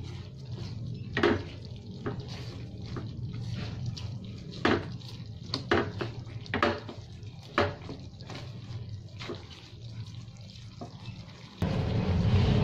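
Wooden spatula stirring shrimp through thick sauce in a nonstick frying pan: wet stirring and scraping sounds with sharp knocks of the spatula against the pan every second or so, over a steady low hum. About a second before the end, a louder steady sound cuts in abruptly.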